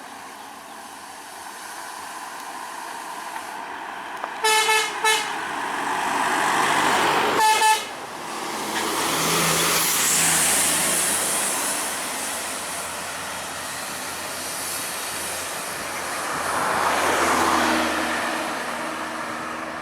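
Short blasts of a telolet horn, the melodic bus horn: two brief toots on one note about four and a half seconds in, then a single higher toot about seven and a half seconds in. Heavy vehicles pass with engine and tyre noise that swells twice afterward.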